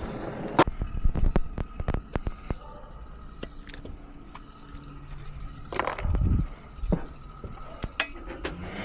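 Sharp metallic clicks and knocks of tools and parts being handled during heat-pump repair work: a quick run of them in the first two seconds, a heavier thud about six seconds in, and a few more clicks near the end.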